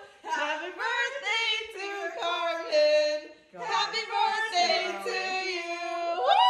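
A woman singing unaccompanied, several sung phrases with a brief break about halfway and a long held note starting near the end.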